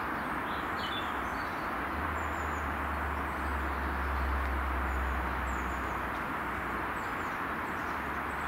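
Class 150 Sprinter diesel multiple unit pulling away, its underfloor diesel engines giving a steady low rumble under a rushing noise; the rumble swells for a few seconds mid-way. A few faint bird chirps sound above it.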